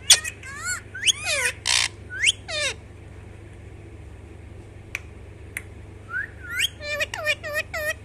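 Rose-ringed parakeet giving quick runs of short, sharply sliding calls: one run in the first three seconds and another from about six seconds in, with a pause between.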